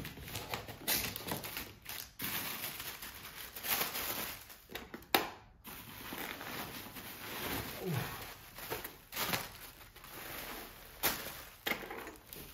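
Cardboard box and plastic packaging being handled and pulled open, rustling and crinkling in irregular bursts, with a sharp knock about five seconds in.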